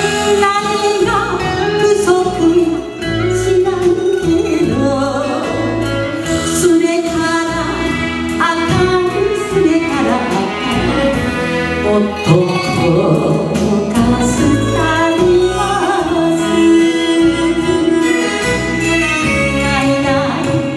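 A woman singing a Japanese popular song into a handheld microphone over instrumental accompaniment with a bass line, her voice bending in pitch and held on long, wavering notes.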